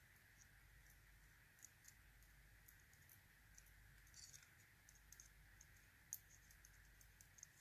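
Faint, scattered small metal clicks of padlock pins and a small tool being handled while a spool pin is fitted back into an American A1100 padlock, over quiet room tone.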